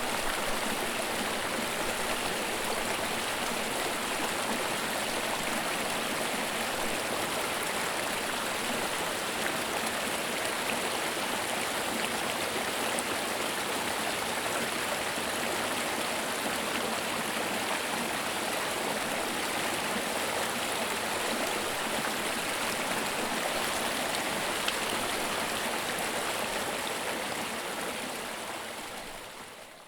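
Creek water babbling steadily over rocks, a constant rushing and gurgling. It fades out near the end.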